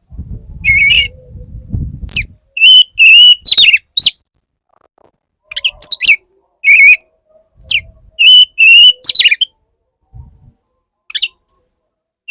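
Male oriental magpie-robin singing its courtship song in loud, short phrases of whistled and chattering notes, with brief pauses between them. A low rumble runs under the first two seconds.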